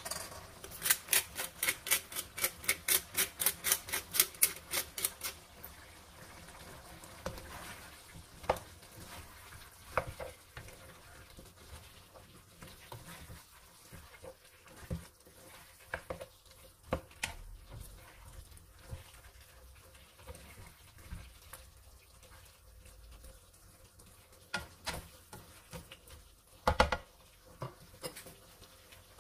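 A spatula stirring chicken, bell peppers and sauce in a nonstick wok. It starts with a quick run of strokes against the pan, about four or five a second, for a few seconds, then gives occasional single knocks over a faint sizzle.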